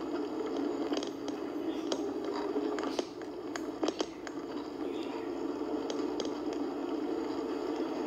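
Road and engine noise of a moving car, heard as a muffled steady rush through a computer's small speaker, with a few sharp clicks.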